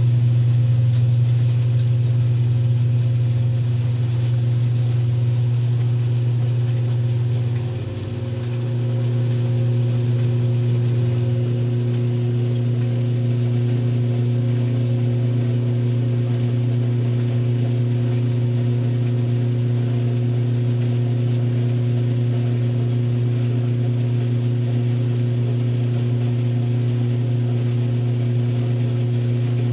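1962 RCA Whirlpool LJA70 washing machine running, its motor giving a steady hum, with a brief drop in loudness about eight seconds in.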